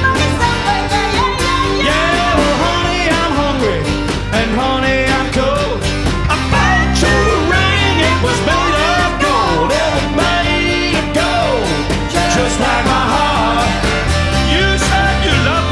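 A live country-rock band playing a song: strummed acoustic guitars, bass and drums on a steady beat, with a voice singing a melody over them.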